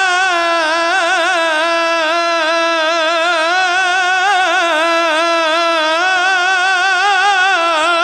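Solo male munshid singing an Islamic ibtihal, holding one long drawn-out note on a single vowel and ornamenting it with fast wavering trills and turns in the Egyptian inshad style.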